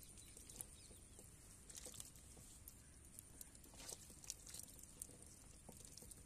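Near silence with faint scattered ticks and small wet slaps: fish fingerlings flicking in shallow water in a plastic crate while a hand picks through them.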